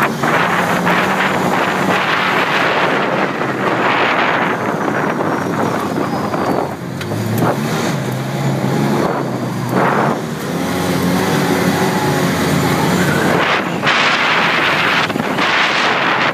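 Off-road vehicle engine running under load while driving over sand, heavily buffeted by wind on the microphone. The engine note shifts up and down around the middle.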